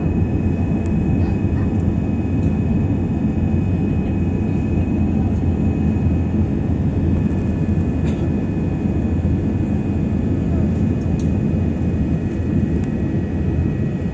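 Jet airliner's turbofan engines heard from inside the passenger cabin during the climb after takeoff: a steady deep rumble with thin, even whine tones over it.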